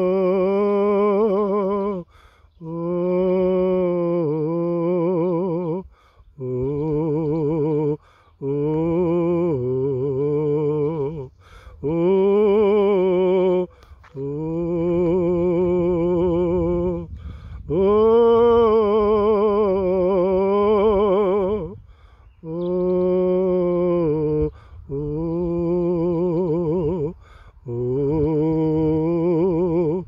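A single voice sings wordless, drawn-out "oh" notes with a wavering vibrato. It goes in about ten held phrases of two to four seconds each, with short breaks between them.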